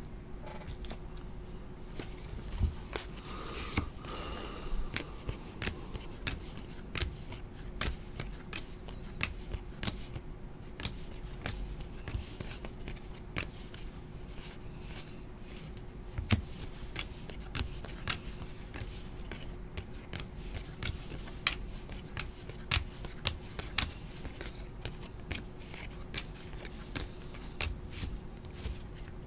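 Stack of 2018 Topps Heritage baseball cards being handled: cards sorted through by hand, slid apart and set down on the table, making many small clicks and rustles over a faint steady hum.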